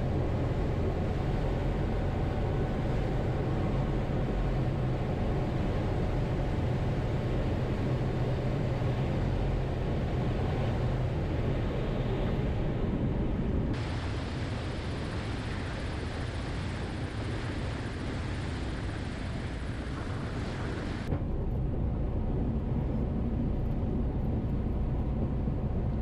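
Small single-engine propeller airplane's engine and propeller running through landing and rollout, a steady drone with air rush. Its tone changes abruptly twice, about halfway through and again near the end.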